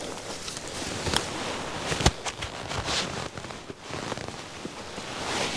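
Close handling and movement noise: clothing and a backpack rustling and feet shifting on dry leaf litter as a hunter creeps and repositions his rifle, with a few sharp knocks, the sharpest about two seconds in.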